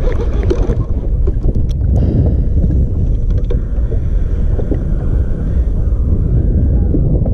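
Wind buffeting the microphone of a kayak-mounted camera on open sea, a steady low rumble, with a few light clicks about two to three seconds in.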